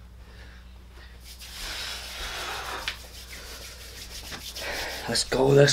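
Soft rubbing and rustling noise over a low steady hum, with a few light knocks; a man's voice begins near the end.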